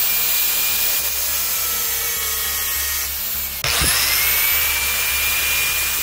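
DeWalt angle grinder with a thin cut-off wheel running at full speed, cutting a small threaded metal rod and throwing sparks. A little past halfway the sound cuts out for a moment, and the motor's whine then climbs back up to speed.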